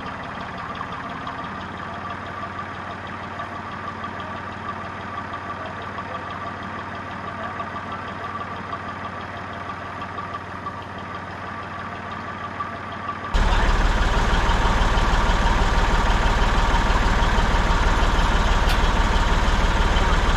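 Massey Ferguson tractor diesel engine running steadily. About 13 seconds in, the sound jumps abruptly to a louder, closer engine.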